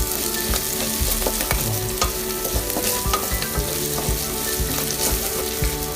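Pork and garlic sizzling in hot oil in a pan while being stirred, with frequent irregular knocks and scrapes of the utensil against the pan.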